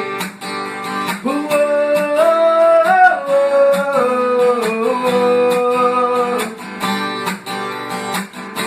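Instrumental break in a pop song: strummed acoustic guitar with a beat, under a lead melody of long held notes that slide from one pitch to the next.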